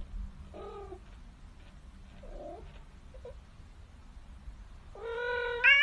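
Domestic cat giving a few soft, short mews, then a long, loud drawn-out meow that starts about five seconds in and rises in pitch near the end.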